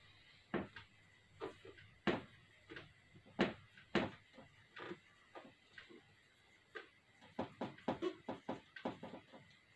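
Marker pen writing on a whiteboard: a series of short, irregular strokes and taps as the letters are written.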